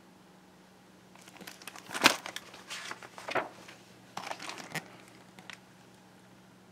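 Picture-book page being turned and handled: a run of paper crinkles and rustles lasting a few seconds, with one sharp snap about two seconds in.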